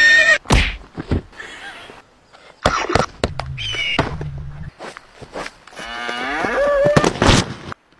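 Animal sounds imitated by a man's voice: a short horse-like whinny at the start, a high eagle-like screech around halfway, and a long bull's moo rising in pitch near the end. Thumps of a body hitting a padded tackle bag come between the calls.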